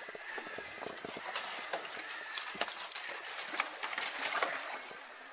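Dry branches and twigs crackling and snapping in quick, irregular clicks as a person pushes and climbs through a tangle of deadwood.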